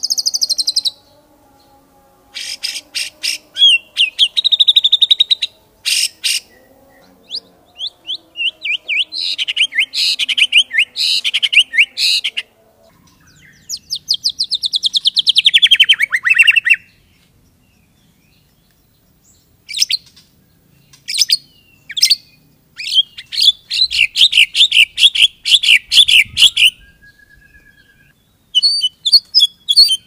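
White-rumped shama singing loud, varied bursts of song: fast rattling runs of repeated notes and trills, and one long downward-sweeping phrase about fifteen seconds in, with short pauses between phrases.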